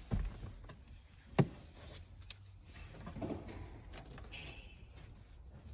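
A few sharp knocks and light clicks of hands handling parts around a car's exposed hybrid battery pack; the loudest knock comes about a second and a half in.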